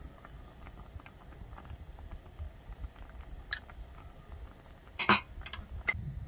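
Soup bubbling in a pot on a gas stove, a low steady rumble with faint ticks. Kitchenware knocks sharply against the pot a few times, loudest as a quick double clink about five seconds in.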